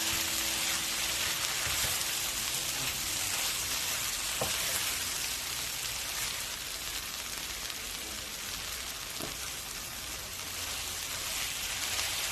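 Potatoes frying in oil in a pan, a steady sizzling hiss with fine crackle.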